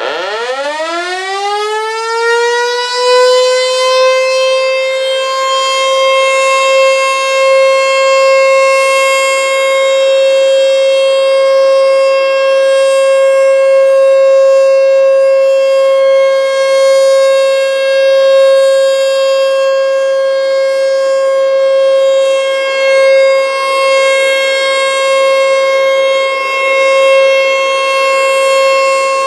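American Signal T-121 electromechanical outdoor warning siren starting up for a test. It winds up over about three seconds, then holds one loud, steady high tone with slight swells in loudness.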